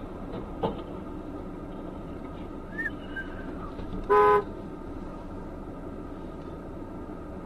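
Steady engine and road noise heard from inside a car, with a short knock about half a second in and one short car horn toot about four seconds in, the loudest sound.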